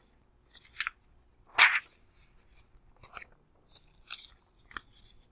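Paper pages of a notes packet being turned and handled: a handful of short rustles and crinkles, the loudest about one and a half seconds in.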